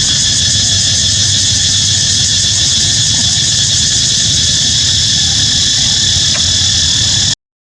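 Cicadas droning steadily and loudly in a high-pitched chorus, over a low outdoor rumble. The sound cuts out abruptly for a moment near the end.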